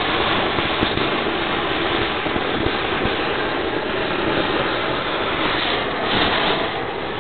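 Gas torch burning with a steady hiss as it singes the bristles off a slaughtered pig's hide.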